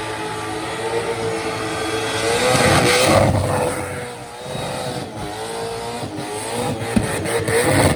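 Fuel-injected burnout car's engine held at high revs, its pitch wavering slightly, loudest about three seconds in with a brief dip a little after four seconds.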